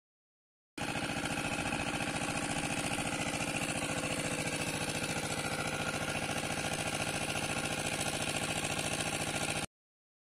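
Small engine of a water pump running at a steady speed with a fast, even beat. It starts abruptly about a second in and cuts off suddenly near the end.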